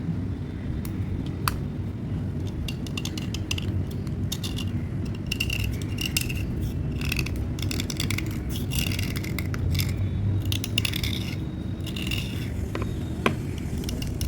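Slate pencils and their box being handled: irregular scraping, clicking and light rattling, over a steady low hum.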